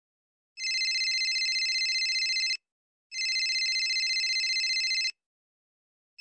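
Mobile phone ringing with a fast-trilling electronic ring: two rings of about two seconds each with half-second pauses between them, and a third ring starting at the end.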